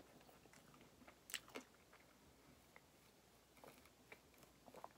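Near silence with a few faint, short mouth sounds of a drink being sipped through a straw, the clearest two about a second and a half in.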